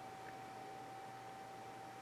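Faint steady high-pitched whine over a low even hiss, with one very faint tick about a quarter second in.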